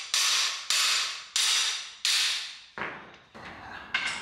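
Hammer striking the steel bar of a cam bearing driver tool to knock the last camshaft bearing out of an LS V8 engine block: four sharp, ringing metal blows about two-thirds of a second apart, then a few softer knocks and a click.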